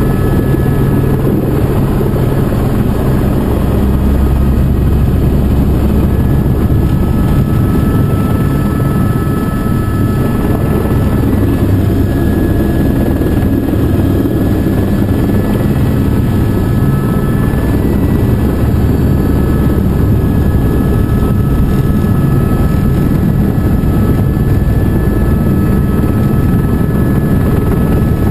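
Helicopter turbine engine and rotor heard from inside the cabin while flying low over the ground: a loud, steady rumble with a faint thin whine over it.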